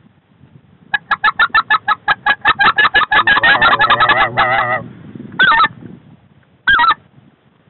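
Goose calling in the specklebelly (white-fronted goose) style: a fast run of clucking notes, about five a second, that runs together into a warbling chatter, then two single yodel-like calls a second or so apart.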